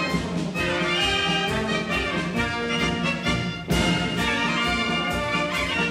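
Brass-led band music, trumpets and trombones over a steady beat.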